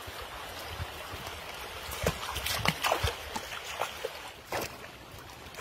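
Water splashing as a person wades through a shallow river, in a run of splashes beginning about two seconds in, over the steady rush of the flowing river.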